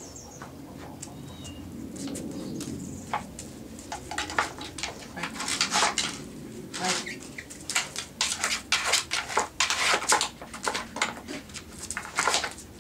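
Wooden dog puzzle board being nosed and pawed by a dog: an irregular run of light wooden knocks and clatter, starting about three seconds in and getting busier.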